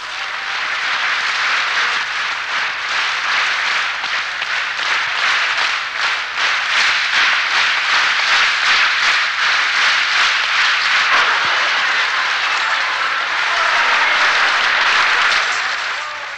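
A concert audience applauding steadily with dense clapping, fading out near the end.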